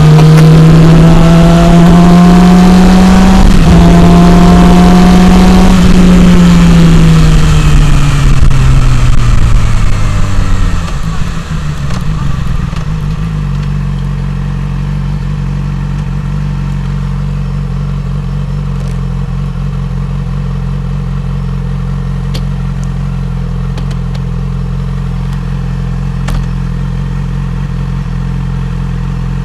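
A 2006–07 Yamaha R6 (RJ15) inline-four engine pulls hard with rising revs and a quick upshift about three seconds in, with wind rush at speed. It then winds down as the bike slows. From about twelve seconds in it idles steadily with the bike at a standstill.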